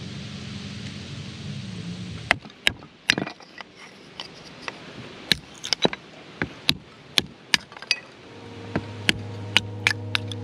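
Kindling being split from softwood offcuts with a blade: a series of sharp, irregular wooden cracks and taps, about one to two a second. Music comes in near the end.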